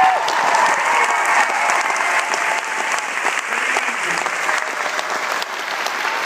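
Theatre audience applauding, a dense steady clapping.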